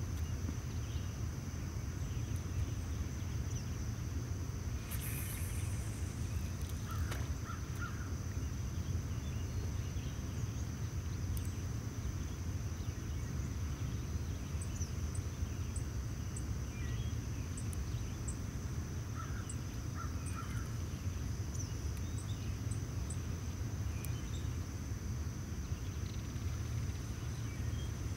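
Outdoor ambience: a steady low rumble under a constant high-pitched insect drone. A few short bird calls come in runs of three, about seven seconds in and again around twenty seconds.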